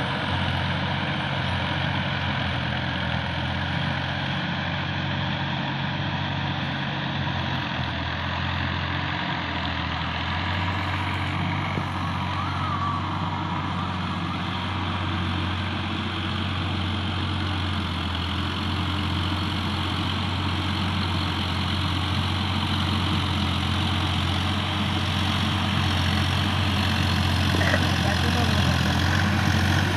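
Sonalika DI 50 RX tractor's diesel engine running steadily as it tills a flooded paddy field, getting louder over the last few seconds as the tractor comes closer.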